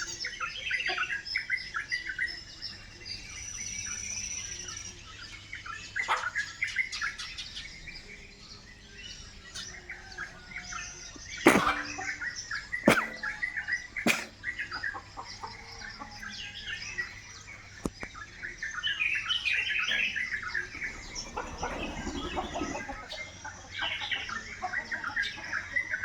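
Birds chirping and cheeping in many short, rapid calls, with three sharp knocks about halfway through.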